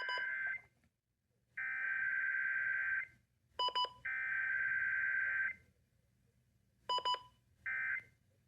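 Emergency Alert System digital data bursts (SAME tones): harsh two-tone warbling bursts, two of them about a second and a half long, then a shorter one near the end. Short clicky beeps come in the gaps.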